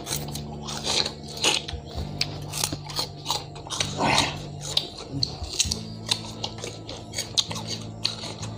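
Raw sugarcane being bitten and chewed, with crisp, irregular cracks and crunches several times a second. Background music with a steady low drone plays underneath.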